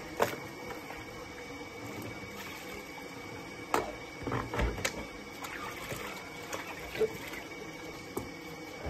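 Plastic knocks and clatter of a plastic baby bath and buckets being handled and emptied of rinse water, with several sharp knocks spread through. A steady low hum runs underneath.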